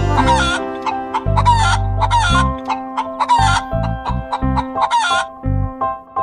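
Hen clucking in a run of short, sharp calls, roughly one every half second to second, over background music with a bass line.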